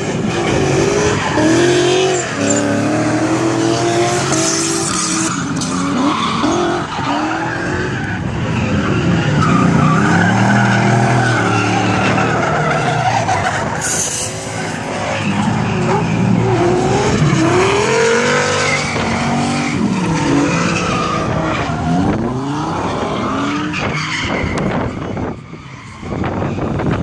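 Two cars drifting in tandem: their engines rev hard and rise and fall again and again under the throttle, over the screech of sliding tyres.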